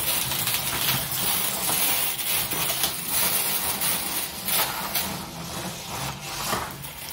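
Small toy battle robots' electric drive motors and gearboxes whirring steadily, with scattered plastic clicks and clatters as the two bots push against each other.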